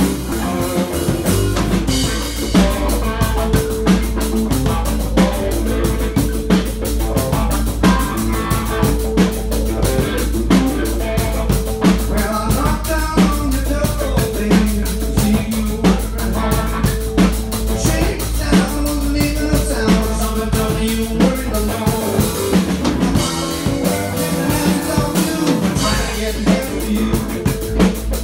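Blues band playing live: two electric guitars, electric bass, stage keyboard and drum kit keeping a steady beat. The low bass drops away for a few seconds about three-quarters of the way through, then returns.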